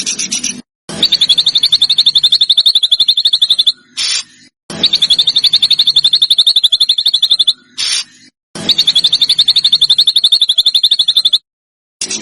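Recorded songbird song: three long, very fast, even trills on one high pitch, each about two and a half seconds long, with a short single note in each gap between them.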